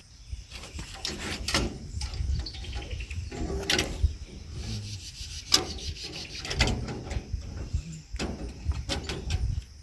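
Knocks and rubbing of gazebo roof bars being handled and fitted into place, over a low rumble, with crickets chirring faintly.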